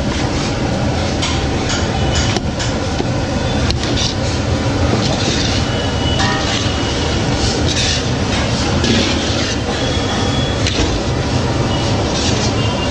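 Loud, steady mechanical rumble with scattered clicks and rattles, like heavy machinery running.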